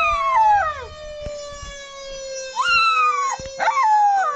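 A husky howling along to a recorded fire-truck siren: three short howls, each jumping up in pitch and sliding down in under a second, over the siren's steady, slowly rising and falling wail.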